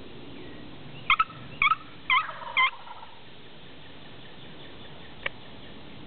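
Wild turkey giving four short yelps about half a second apart, followed a few seconds later by a single sharp click.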